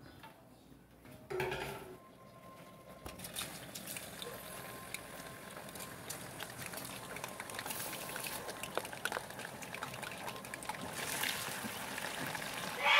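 Pieces of linguiça sausage cooking in a pot of water and oil on a gas burner: a steady sizzle and bubbling that grows louder, with a wooden spoon stirring near the end. A short clatter of pots about a second and a half in.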